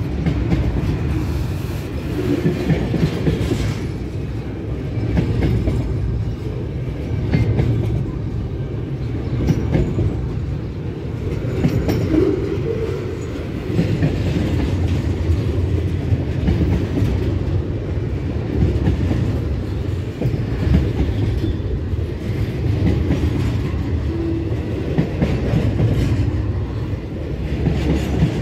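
Double-stack container train's well cars rolling past close by: a steady heavy rumble of steel wheels on the rails, with clickety-clack as the wheels cross rail joints.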